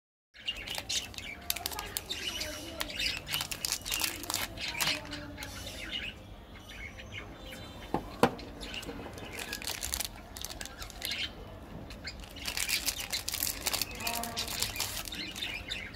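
Foil and plastic chocolate-bar wrappers crinkling and rustling as they are handled and pulled open, an irregular run of small crackles, with two sharp clicks about eight seconds in.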